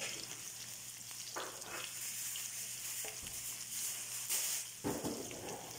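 Chopped garlic sizzling in hot oil in a wok, stirred with a wooden spatula that scrapes and knocks against the pan a few times.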